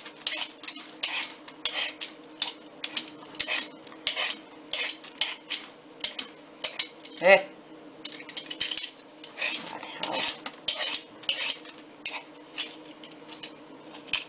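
Y-shaped vegetable peeler scraping the skin off an aubergine in quick repeated strokes, about two a second. A short pitched sound rises above them about halfway through.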